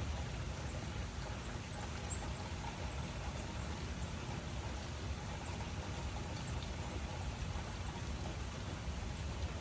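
Steady rain falling: an even, unbroken wash of noise, heaviest in the deep low end, with a few faint high drip ticks.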